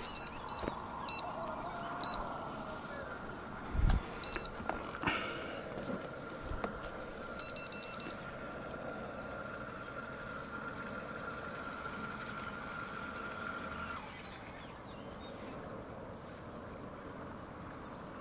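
Short electronic beeps, several in the first eight seconds, over a steady high whine that cuts off abruptly about fourteen seconds in; a low thump near four seconds.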